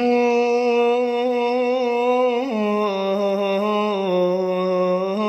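A young man singing Iraqi-style with no accompaniment, holding one long wavering note. The note steps down in pitch about halfway through and is held on.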